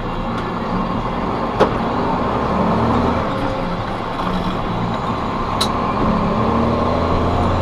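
Truck cab interior while driving: steady engine and road noise, with the engine note rising near the end as it picks up speed. Two sharp clicks from the cab, about a second and a half in and again past five seconds.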